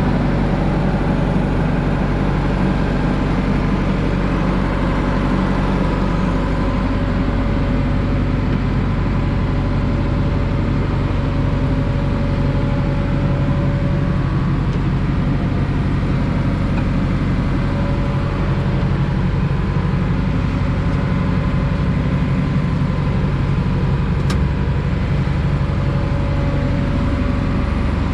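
Diesel engine of a JCB 4CX backhoe loader running steadily, with a low, even engine note.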